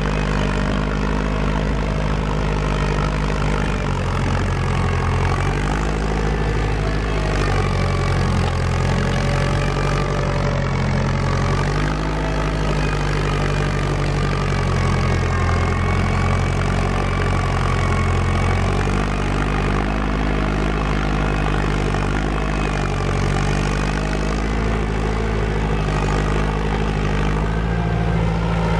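Farm tractor engine running steadily under load while pulling a plow through sod, its pitch shifting slightly every few seconds.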